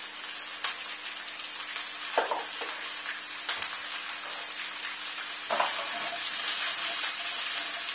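Broccoli and onion sizzling steadily in hot oil in a wok on high heat, with a spatula stirring them near the end.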